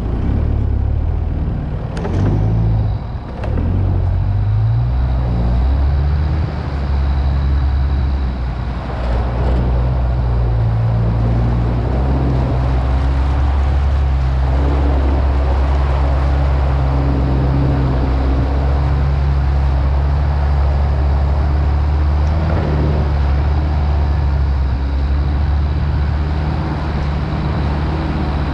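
Mitsubishi Pajero off-roader's engine running under load as it drives through deep mud, its revs stepping up and down. There is a sharp knock about two seconds in.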